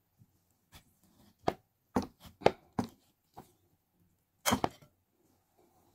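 A knife cutting a tomato in half on a ceramic dinner plate: a series of sharp taps and clicks as the blade goes through and meets the plate, with a louder clatter about four and a half seconds in.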